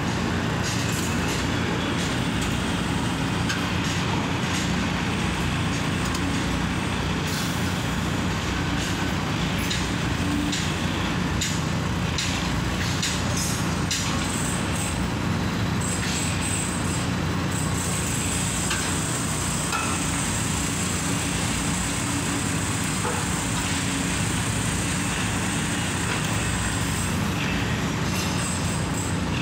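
Steady drone of heavy machinery at a tower-crane erection site, with scattered light clicks and knocks of steelwork. A high hiss joins for several seconds past the middle.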